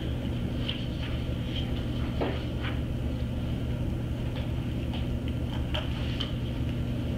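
Steady low room hum with about ten faint, irregularly spaced clicks from operating a computer.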